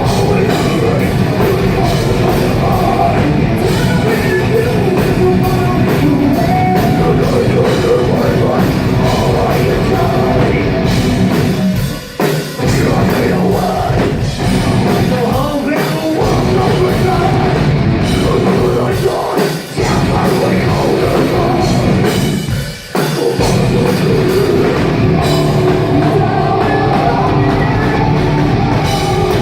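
Metal band playing live with drums and vocals, loud and distorted through an overloaded phone microphone, with a few short breaks in the music in the middle.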